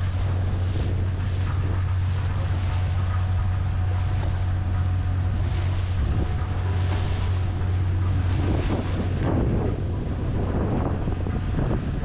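Sightseeing cruise boat's engine running with a steady low drone, with wind buffeting the microphone and water washing past the hull.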